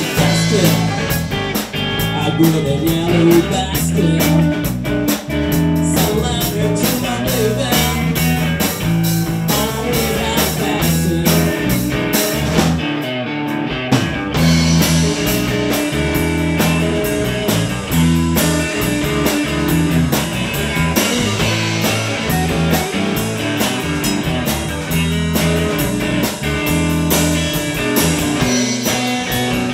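A blues-rock power trio playing live: electric guitar, electric bass and drum kit driving a steady beat, with a man singing.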